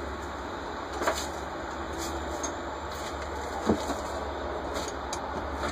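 Light clicks and knocks of small metal parts as a Rochester Quadrajet carburetor is worked on by hand, one about a second in and a sharper knock a little past halfway, over a steady background hiss.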